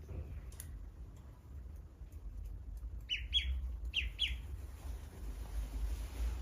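Duckling peeping: four short, high, falling peeps in two quick pairs about three and four seconds in, over a low rumble.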